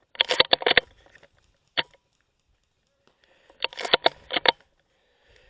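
Two short bursts of rapid airsoft gunfire, about a dozen sharp cracks a second, with a single crack between them.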